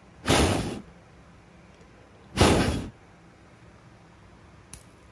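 Two short puffs of breath blown at the beaded lure's small metal spinner blade, each about half a second long and heard as a gust on the microphone, then a faint click near the end.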